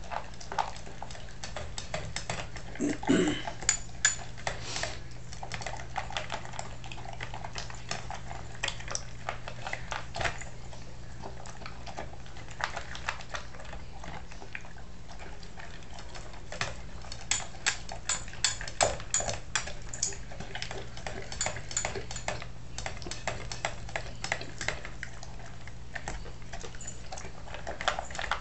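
Bernese Mountain Dog eating kibble with steak and gravy from a stainless steel bowl: sloppy chewing with irregular clicks and clinks against the bowl, busier in a few spells. A steady low hum runs underneath.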